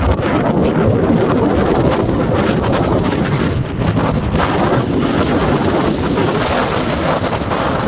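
Wind buffeting the microphone: a loud, steady rush with brief gusty dips.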